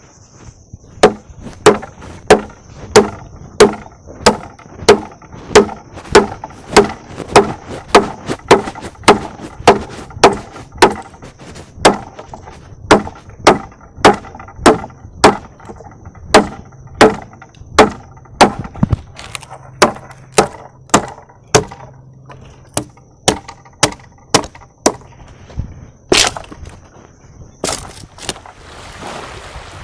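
Wood being chopped with a blade in a steady rhythm of about two strikes a second. The strikes are loudest at first and weaken a little toward the end, then stop.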